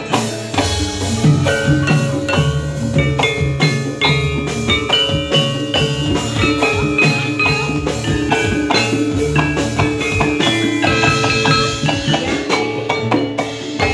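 Javanese gamelan playing jathilan music: saron-type bronze metallophones struck with wooden mallets in quick, ringing notes over kendang hand drums.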